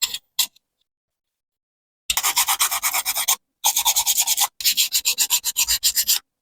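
Quick back-and-forth abrasive rubbing, like hand sanding, about eight strokes a second. It comes in runs of a second or so with short breaks, starting about two seconds in, after a couple of faint clicks.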